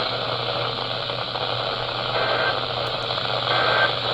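Weather radio receiver static, a steady hiss with a low hum. About two seconds in, and again a second and a half later, it is cut by short identical data bursts of the Emergency Alert System end-of-message code.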